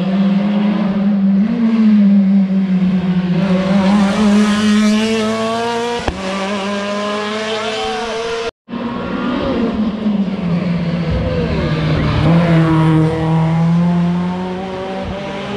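Rally car engines running hard on a special stage: one car's engine note climbs steadily as it approaches, then after a brief break about eight and a half seconds in, another engine note dips and rises again as a car drives through.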